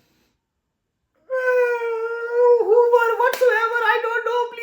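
A person's voice holding a long, high, wavering note, like a wail or sung tone, starting suddenly after about a second of silence, with a couple of sharp clicks over it.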